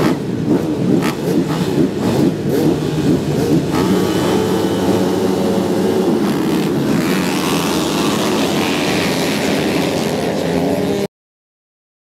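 Four-stroke motocross bikes at a race start, engines blipping and revving, then pulling away together under full throttle with a steadier, rising note from about four seconds in. The engine noise cuts off abruptly about a second before the end.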